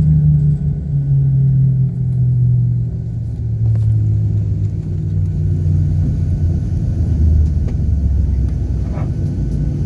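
Low rumble of an airliner rolling out on the runway just after landing, heard inside the cabin, its pitch falling steadily as the plane slows.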